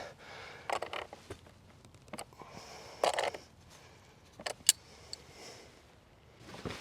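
Hand tool tightening battery terminal nuts: scattered metal clicks and short scrapes, with a sharper pair of clicks a little after halfway.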